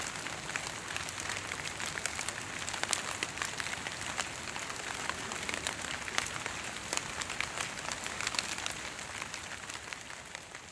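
Fog drip: water that fog has left on the leaves and needles of tall trees falling onto the foliage below, making an irregular patter of many small ticks like light rain. It grows fainter near the end.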